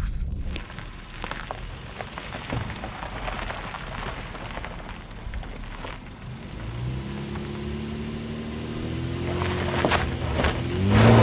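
2020 Honda Ridgeline's 3.5-litre V6 engine working under load as the truck starts up a steep dirt hill, coming in after about seven seconds and getting louder, its pitch rising slightly, near the end. Before that, a rough hiss with scattered ticks.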